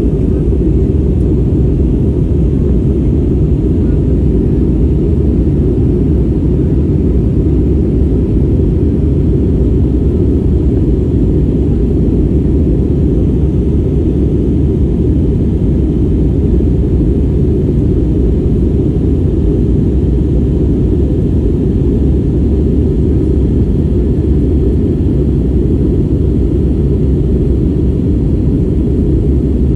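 Airplane cabin noise in flight: the engines and rushing air make a steady, loud low rumble, heard from inside the cabin.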